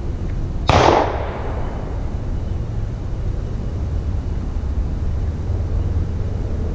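A single shotgun shot about a second in, sudden and loud with a short fading tail, over a steady low rumble.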